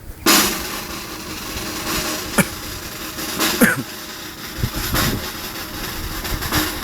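Rifle volleys of a military gun salute: a burst of noise just after the start, then several sharp cracks a second or more apart, over a steady rushing noise.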